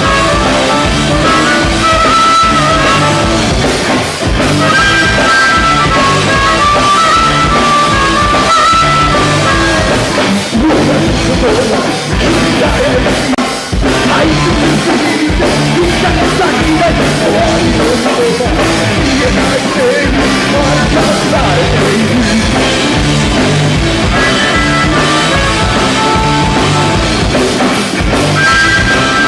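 A rock band playing live: drum kit, bass and electric guitar, with held lead-guitar lines over a steady drum beat.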